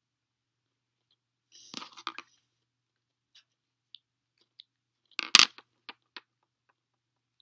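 Crinkly rustling of a synthetic single-braid line being squeezed and worked in the fingers during splicing: a short crackly burst about two seconds in, a louder sharp crunch about five seconds in, then a few faint ticks.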